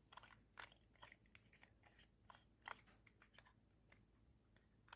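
Faint, irregular small clicks and ticks as the screw-on back of a Waltham pocket watch is unscrewed by hand.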